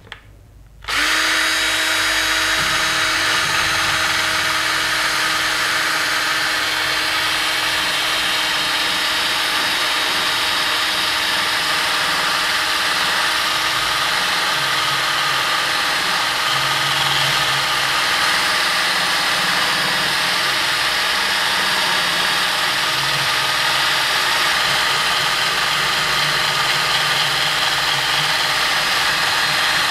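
Cordless drill spinning a sanding drum, its motor starting abruptly about a second in and then running steadily at constant speed while the drum sands paint off the inside of a Stratocaster body's wooden horns.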